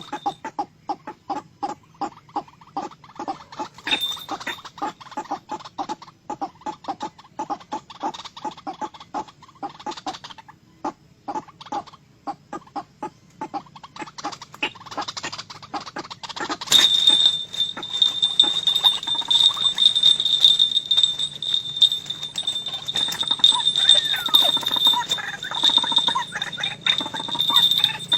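White-breasted waterhen calling: a rapid run of repeated croaking notes, several a second. About two-thirds of the way through, a steady high whine comes in and the sound grows louder.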